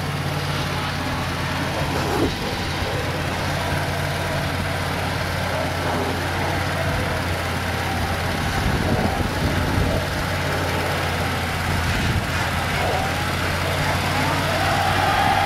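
Pickup truck and farm tractor engines idling steadily, with a wavering higher-pitched tone joining in near the end.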